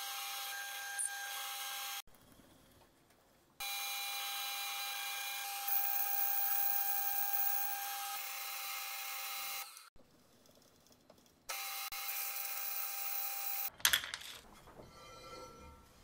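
Milling machine running with an annular cutter cutting shaft holes through steel plate: a steady whine with a thin held tone, in three stretches that cut off abruptly. Near the end, sharp clunks and knocks as the steel workpiece is handled on the machine table.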